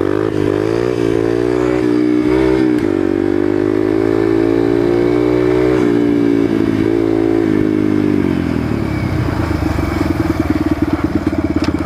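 Yamaha TTR 125's single-cylinder four-stroke engine running at steady part throttle, its pitch wavering a little. About eight seconds in it drops to a lumpy, pulsing idle.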